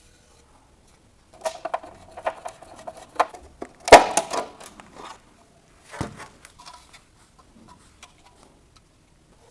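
Hard objects being handled and set down: a run of clicks and rattles, with a sharp knock about four seconds in and another about six seconds in, then a few scattered light ticks.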